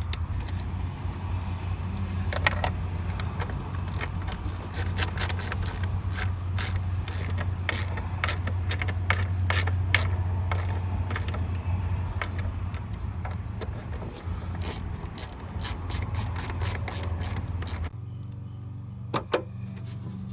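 Hand ratchet clicking in quick runs while fasteners are driven down, over a steady low hum. The ratchet stops about 18 seconds in.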